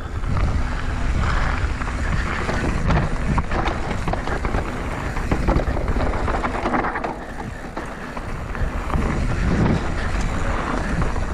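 Downhill mountain bike ridden fast on a dirt trail: wind buffeting the microphone over a steady rush of tyre noise, with scattered rattles and knocks from the bike.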